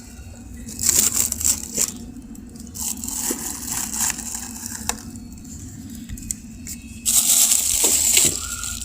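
Rustling, crinkling and scraping handling noises in two bursts, about a second in and again near the end, as the slime mixture is put into the freezer.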